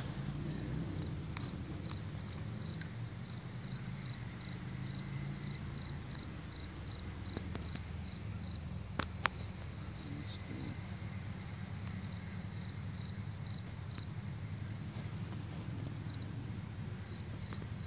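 An insect chirping in a steady, even rhythm, about three short high chirps a second, over a low steady rumble, with a single sharp click about nine seconds in.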